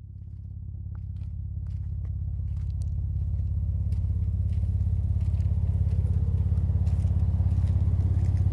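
A 2011 Jeep Wrangler Rubicon's 3.8-litre V6 running at a low, steady speed with a fast, even pulsing, fading in over the first few seconds, with scattered faint clicks and crackles over it.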